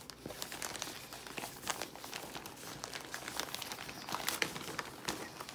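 Newspaper wrapping crinkling and rustling as hands unwrap it: a steady run of small, irregular crackles.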